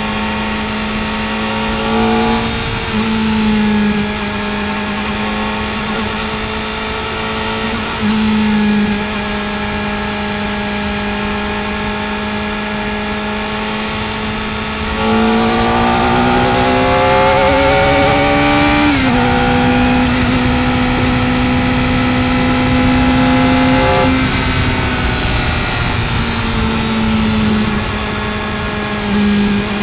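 Kawasaki Ninja ZX-4R's inline-four engine running at steady road speed, with small changes in revs. About halfway through it gets louder and climbs in revs for a few seconds under acceleration, then drops back in two steps at the gear changes and settles.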